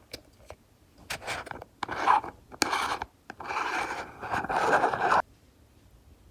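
Slime being handled: a few scratchy, rubbing bursts and then a longer one that stops suddenly about five seconds in.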